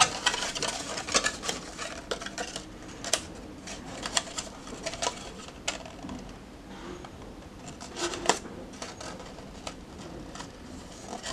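Thin card being folded and pressed by hand: irregular light crinkles, clicks and taps as the scored flaps of a small box are folded in and stuck down with tape. The handling is busiest at the start and again about eight seconds in.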